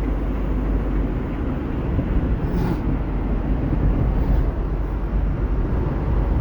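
Steady low rumble of a car driving, with engine and tyre noise heard from inside the cabin and the air conditioning running. A short soft hiss comes about two and a half seconds in.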